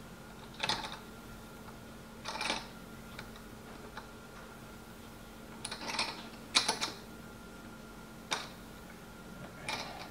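A magnifying lamp's desk clamp being handled and fitted to the edge of a desk: a few short clicks and scrapes, with a quick cluster of them around six seconds in.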